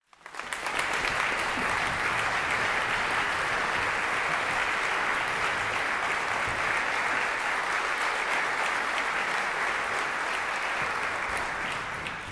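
Concert audience applauding steadily, a dense patter of many hands clapping that dies away near the end.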